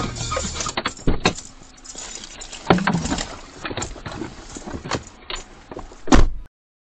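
Car cabin noise picked up by a dashcam while driving on a wet road: a steady road hiss with irregular knocks and clicks, the loudest near the end. The sound cuts off abruptly about six and a half seconds in.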